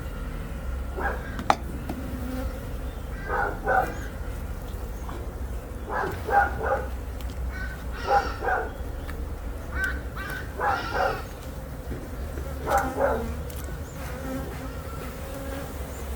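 Honeybees buzzing around an open brood box, a steady hum. Over it come short pitched cries in quick little clusters, repeating every second or two; these are the loudest sounds.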